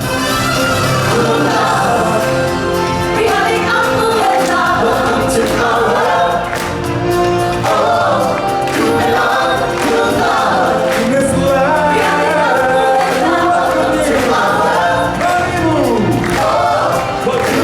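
A choir singing with a band's music and drum beats, from the show's opening number.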